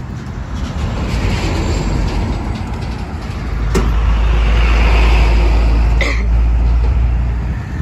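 A heavy truck drives past close by, its engine and tyre noise swelling to a peak about five seconds in and easing near the end, with a sharp click about a second before the peak and another as it comes alongside.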